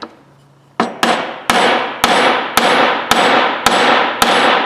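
Steady, evenly spaced hammer blows on a punch against the steel of a Snap-on ratchet, about two a second, each with a short metallic ring. They begin about a second in. They are trying to drive out a part that is not moving.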